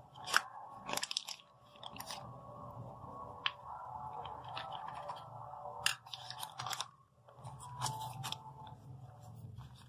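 Crisp crinkling and crackling of thin pastry sheets being handled and rolled into cigar shells, with a few sharp clicks scattered through, over a faint low steady hum.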